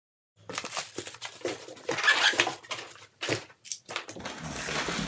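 Plastic bag crinkling and styrofoam packing rustling and squeaking as a boxed servo motor is unwrapped and handled, with a few sharp knocks and scrapes. The noise starts abruptly about half a second in and comes in uneven bursts.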